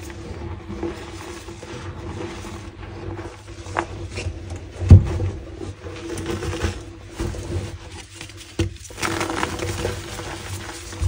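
Chunks of gym chalk being crunched and crumbled close to the microphone: continuous crackling broken by sharper crunches, the loudest about five seconds in.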